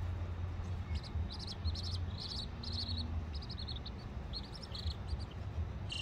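Young chicks peeping in a flurry of short, high chirps, over a steady low rumble.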